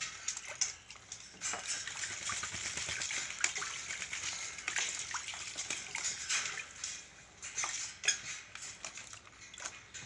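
Swamphen bathing in a shallow plastic basin of water, splashing with its wings and body: a rapid run of splashes and patters, busiest from about a second and a half in to about seven seconds, with another burst near eight seconds.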